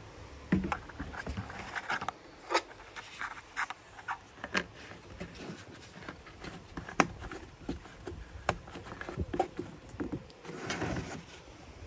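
Irregular handling noises: a dozen or so sharp knocks and clicks spread through, with scraping and rustling between them and a denser rustle near the end.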